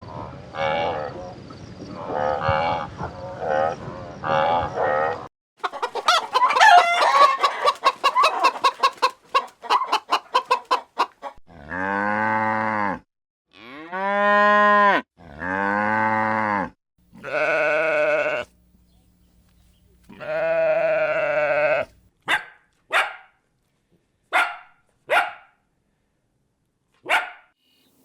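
A run of farm animal calls, one clip after another: a pulsing, grunting stretch, then a rapid train of calls that fades out, then about five drawn-out calls of about a second each with pitch rising and falling, like mooing and bleating, and a few short sharp calls near the end.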